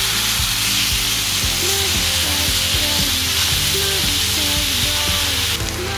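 Marinated beef short ribs sizzling on a hot cast-iron grill pan, a steady hiss that drops sharply quieter near the end, over soft background music.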